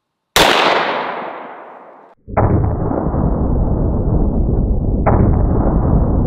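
A single .44 Magnum pistol shot from a Magnum Research handgun, its echo dying away over about two seconds. Then a loud, steady rush of low noise starts and surges again about five seconds in.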